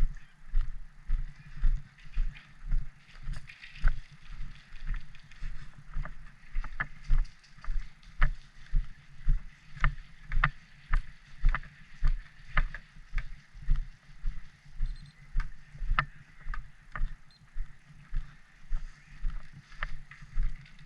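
Footsteps of a person walking, thudding through a body-worn camera at about two steps a second, with scattered sharp clicks over the top.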